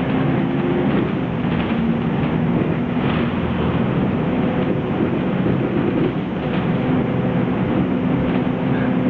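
Inside a moving city bus: the bus engine running and road rumble, a steady noise with a low engine hum that shifts slightly in pitch as the bus drives along.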